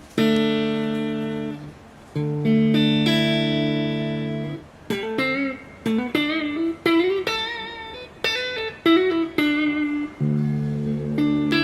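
Electric guitar (PRS SE Custom 22 Semi-Hollow) played through a Mesa/Boogie Triple Crown TC-50 amp head. Two chords are struck and left to ring, then a run of picked single notes with vibrato, then another ringing chord near the end.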